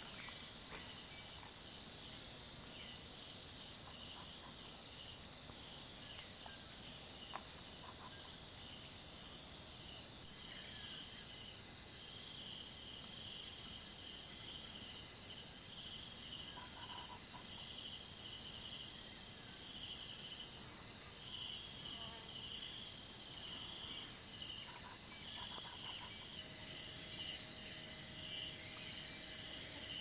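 Insects chirring in chorus: a steady high trill over a lower pulsing call that repeats about once a second, with a higher pulsed call joining in during the first third.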